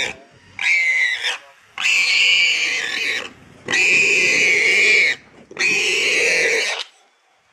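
Warthog squealing in distress while held down by lionesses: four long squeals with short gaps between them.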